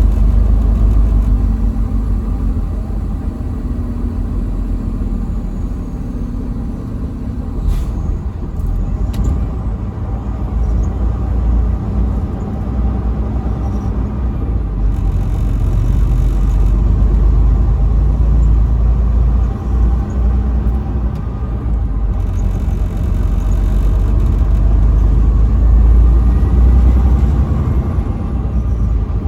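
Truck driving on a highway: a steady low engine and road rumble.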